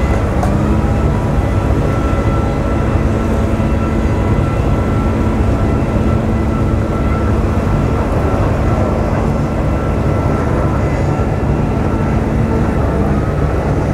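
Boat engines running with a steady low drone and a constant hum, with a slight shift in pitch near the start and again near the end.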